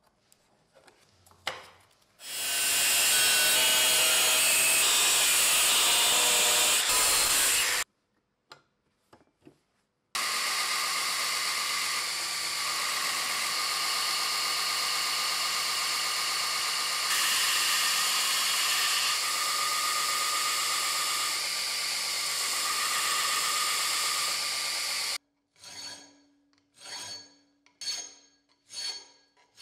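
A belt grinder grinding a pattern-welded steel blade in two long spells with a short break, a steady abrasive hiss. Near the end about six strokes of a hand file on the steel blade clamped in a vise.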